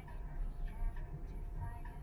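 Car driving along a road: a steady low rumble of engine and tyre noise, with light background music playing over it.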